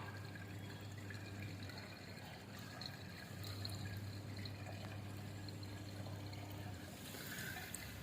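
Faint water pouring and trickling: lukewarm water from a neti pot running through the nose and out of the other nostril during jal neti nasal rinsing, over a low hum.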